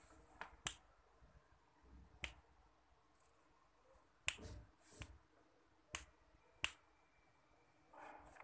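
Sharp clicks close to the microphone, about six of them at irregular intervals over several seconds, with a soft rustle near the end.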